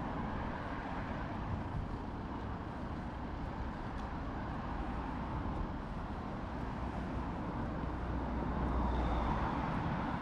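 Road traffic noise with a steady low rumble, one vehicle growing louder in the last few seconds.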